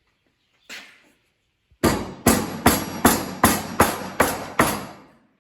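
Hammer blows: one strike, then a quick run of about eight even blows, about two and a half a second, that stops shortly before the end.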